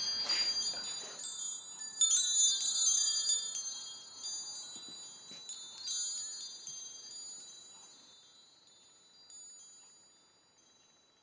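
Wind chimes ringing: many overlapping high, clear metallic tones, busiest in the first few seconds, then thinning out and fading away about ten seconds in.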